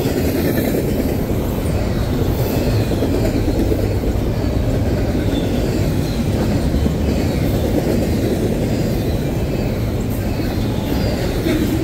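Double-stack intermodal container train rolling steadily past: a continuous rumble of steel wheels on rail from the passing well cars, with an occasional faint click.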